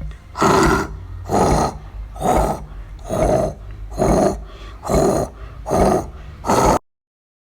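A monster vocal sound effect: a harsh, breathy, rasping voice repeated about once a second, seven times, like heavy rhythmic breathing. It cuts off suddenly near the end.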